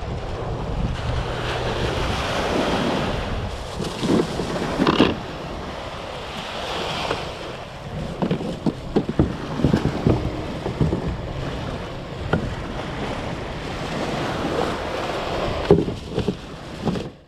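Small surf washing up a sandy beach with wind buffeting the microphone, and scattered knocks and bumps from the kayak and its gear.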